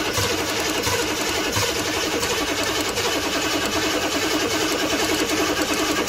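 A 1985 GMC Jimmy's 6.2-litre Detroit Diesel V8 cranking steadily on the starter without catching. It turns over but will not run, a fault the owner puts down to a failing Stanadyne injector pump.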